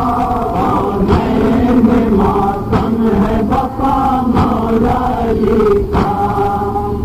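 Nauha, a Shia lament, chanted by a group of male voices in a slow, sustained melody. Sharp beats fall about every second and a half: chest-beating (matam) in time with the lament.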